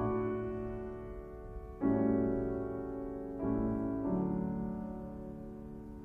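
Slow, soft piano music: sustained chords struck about every second or two, each ringing on and fading away.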